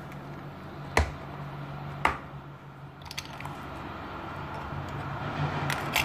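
Plastic snap latches of a 115-in-1 screwdriver bit case clicking open: two sharp clicks about a second apart, then lighter plastic clicks as the lid comes off and the pry picks are handled, over a low steady hum.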